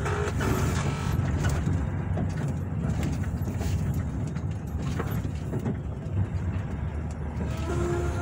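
Vehicle engine and road noise heard from inside the cab while driving slowly: a steady low rumble.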